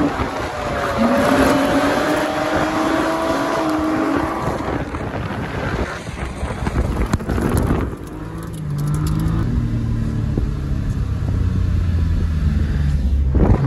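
Car engines revving up and down hard as the cars drift in tandem on snow. About eight seconds in the revs drop and the engine runs more steadily at a low pitch until a sudden change near the end.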